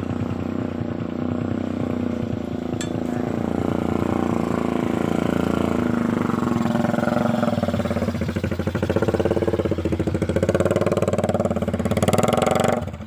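Small motorcycle engine running hard. Its revs climb from about halfway through, are held high and loud, then fall off abruptly near the end.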